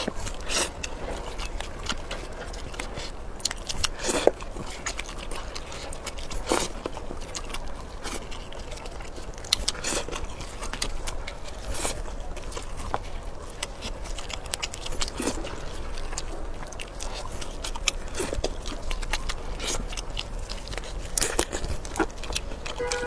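Close-up eating sounds: wet chewing and biting of sauced shrimp, with scattered sharp crunches and clicks at irregular moments.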